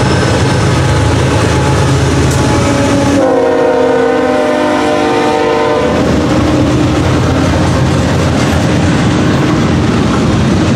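BNSF GE ES44C4 locomotive passing in notch 8 (full throttle), its GEVO V12 diesel rumbling. About three seconds in the air horn blows one chord for just under three seconds. After that the container cars roll by with steady wheel-on-rail noise.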